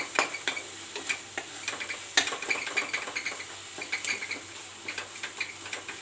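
Slotted spatula stirring and scraping a thick onion-tomato masala around a frying pan, giving irregular clicks and scrapes several times a second.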